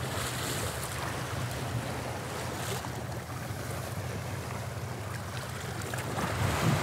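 Sea waves washing on the rocky shore with wind, a steady rushing noise over a low, even hum.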